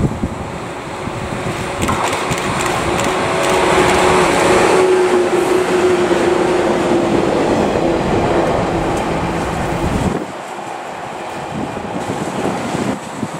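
Electric train passing close by: rumble of wheels on the rails with a steady motor whine. It builds from about two seconds in and cuts off abruptly about ten seconds in, leaving wind noise on the microphone.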